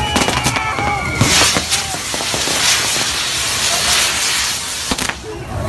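Fireworks on a burning torito hissing loudly as they spray sparks. A falling whistle and crackles come in the first second, then a strong steady hiss from about a second in, with a sharp crack near the end.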